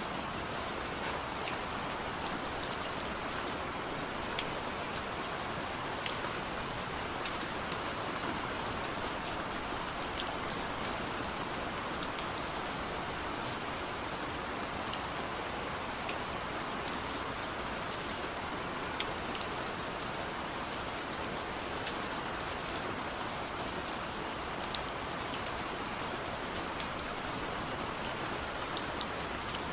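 Steady rain falling, an even hiss with many individual drops clicking sharply on a surface throughout.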